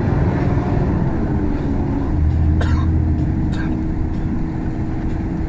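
Inside the cabin of a MAN A85 18.280 bus cruising on an expressway: its D0836 inline-six diesel drones steadily under road noise, the engine note dipping slightly about two seconds in. Two sharp knocks or rattles sound about a second apart in the middle.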